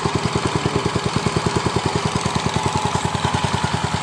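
Mitsubishi GM132L single-cylinder four-stroke petrol engine, rated 4 HP, running at a steady even speed while driving an air blower, about eleven beats a second, with a steady whine alongside.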